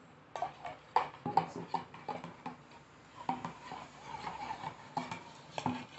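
Metal spoon stirring in a stainless steel bowl, clinking and scraping against its sides at an irregular pace of about two or three clinks a second, some with a short metallic ring. The spoon is dissolving alum in hot water.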